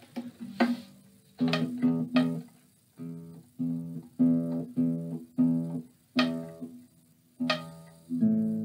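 Córdoba Estudio nylon-string classical guitar played with the fingers: a few single plucked notes, then the same chord struck again and again at an even pace, about one every half second, in short phrases with brief pauses between them.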